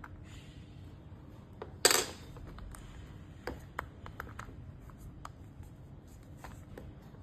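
Small parts of a remote-control car being handled during a bearing replacement: one sharp clack about two seconds in, followed by scattered light clicks and ticks.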